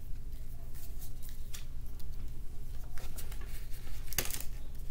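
Pokémon trading cards being handled and flipped through: a few faint, short rustles and taps, the clearest near the end, over a steady low hum.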